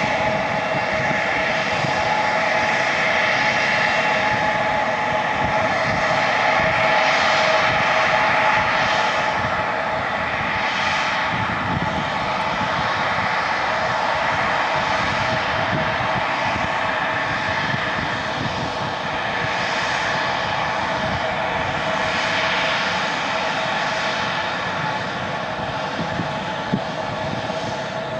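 Embraer 175 jet's twin turbofan engines (GE CF34-8E) running at taxi power while the airliner taxis and turns. They make a steady whine of several held tones over a rushing hiss.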